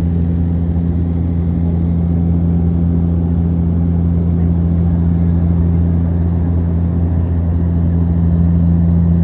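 Propeller aircraft's engines and propellers running steadily in flight, heard inside the cabin as a loud, even drone with a deep, unchanging hum.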